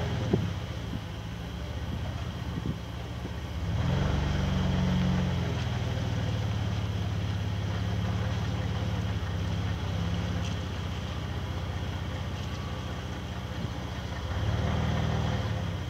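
An engine running steadily at low speed, revved up briefly twice: once about four seconds in and again near the end.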